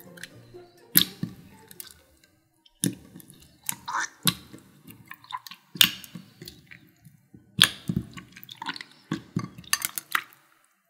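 Clear slime with melting ice cubes and ice water being poked and squished by hand in a glass dish: wet squelches and sharp, sticky pops and crackles that come in irregular clusters, with a short pause about two seconds in.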